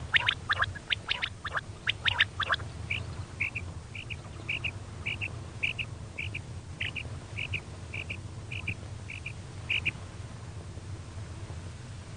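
Female quail calling: a quick flurry of sharp chirps, then a long run of short doubled notes about twice a second that stops near the end, over a low steady hum.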